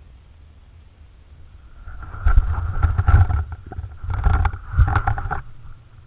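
Owl moving in its nest box: two bursts of scraping and bumping close to the microphone, about three seconds in all, starting a little after two seconds in.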